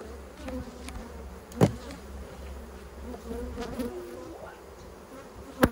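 Honey bees buzzing around an opened hive, a steady hum, broken by two sharp knocks, one about a second and a half in and one near the end, as the wooden hive boxes are handled.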